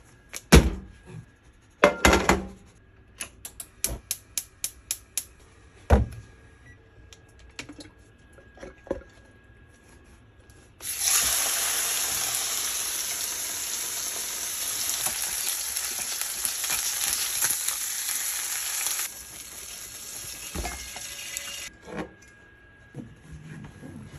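Beef steak sizzling loudly in a hot, oiled frying pan for about ten seconds; the sizzle drops in level after about eight seconds and stops a couple of seconds later. Before it, a few knocks and a quick run of about ten clicks.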